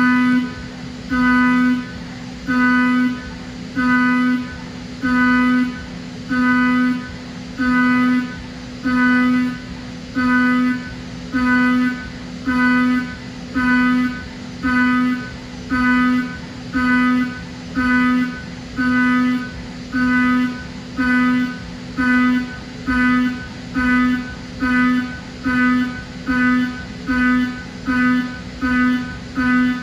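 Ceramic end mill in a Haas UMC-750SS spindle cutting Inconel 625 at high speed. It gives a steady pitched whine with overtones that swells and drops in regular pulses, about one every three-quarters of a second, as the cutter goes in and out of the cut. The sound stays unchanged over long non-stop cutting, a sign that the tool is holding up.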